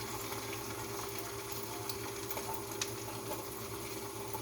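Hot cooking oil sizzling steadily in a frying pan on a gas stove, with a few small crackles.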